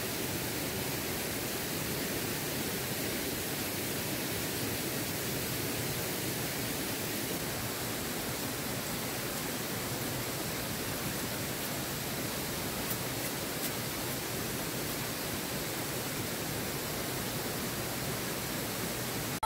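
Steady, even rushing of a waterfall, holding level with no distinct events.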